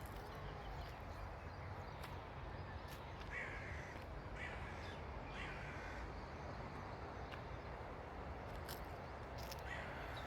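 Crows cawing: three harsh calls about a second apart a few seconds in, and another near the end, over a steady low rumble.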